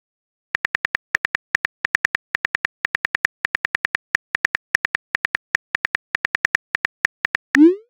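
Simulated phone-keyboard typing from the TextingStory chat app: quick, uneven ticks, roughly seven a second, one per letter as a text message is typed. Right at the end comes a short rising swoosh as the message is sent.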